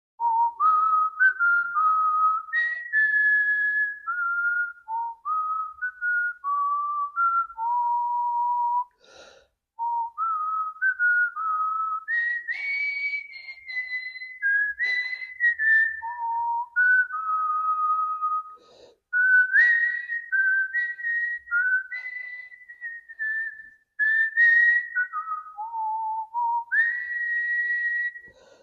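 A man whistling a melody in a clear, pure tone, moving step by step between held and quick notes, with a few short breaks.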